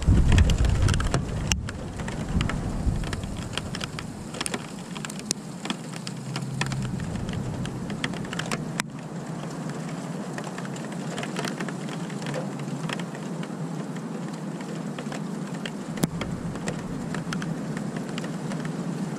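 Steady rain falling during a thunderstorm, with many sharp drip clicks. A low rumble dies away over the first few seconds.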